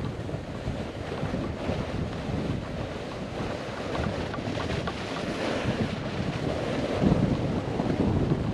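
Wind buffeting the microphone over the hiss and scrape of a snowboard riding through slushy spring snow, growing louder about seven seconds in.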